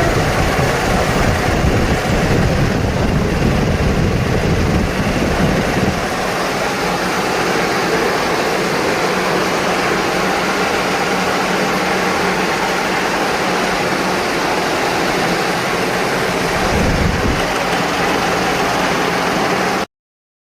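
Milling machine running with a steady mechanical noise and a low rumble that eases about six seconds in. The sound cuts off suddenly near the end.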